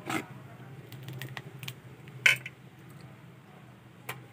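A steel ladle stirring thick rice kheer in a metal pot: a few short clicks and scrapes of the ladle against the pot, the loudest a little past two seconds in, over a steady low hum.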